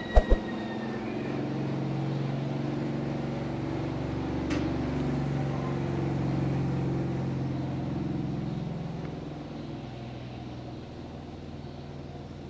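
An engine running steadily with a low hum that drifts slightly in pitch, easing off about ten seconds in; two sharp clicks right at the start.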